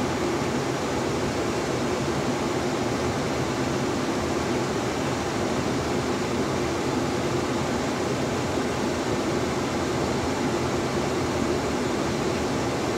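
Steady rush of air from a 2002 Ford F150's heater/AC blower through the dash vent, with the temperature control switched over to cold.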